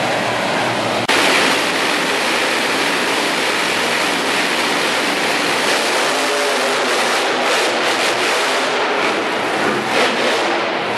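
Monster truck engine running hard at high throttle, heard as a loud, dense, unbroken noise that jumps a little louder about a second in.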